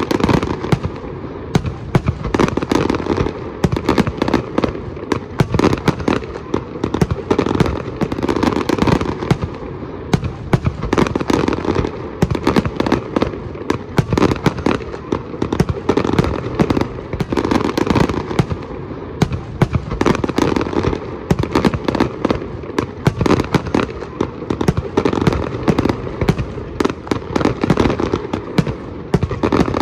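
Fireworks display: a dense, continuous barrage of sharp bangs and crackling bursts, packed closely together with no let-up.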